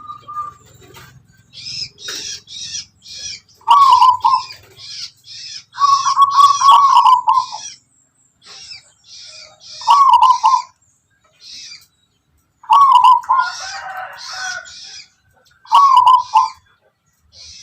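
Zebra dove (perkutut) cooing: five short, loud cooing phrases a few seconds apart, with high, quick chirping repeating between and over them.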